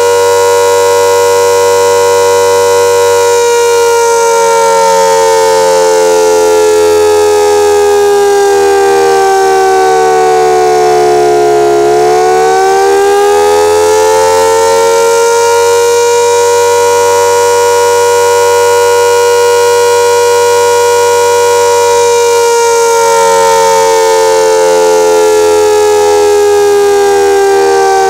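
Castle Castings air raid siren wailing, several tones sounding together as a chord. Its pitch slowly sinks for about twelve seconds, climbs back over a few seconds, holds, then begins to sink again near the end.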